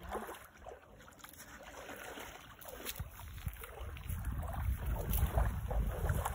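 Legs wading and splashing through shallow lake water, with small waves lapping, while strong wind buffets the microphone in a low rumble that grows louder about four seconds in.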